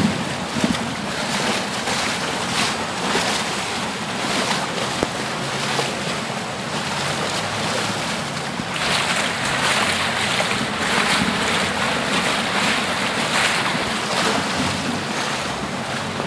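Heavy rain and rushing flash-flood water make a steady hiss, with wind buffeting the microphone. The hiss grows brighter and sharper about nine seconds in.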